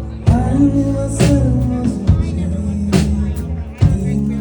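Dream-pop band playing: drum-kit hits about once a second over held bass and chord tones.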